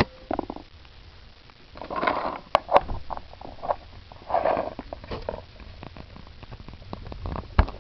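Handling noise close to the microphone: hands moving and rubbing hard plastic action-figure parts, with two rustling swells and a few sharp plastic clicks, the last near the end.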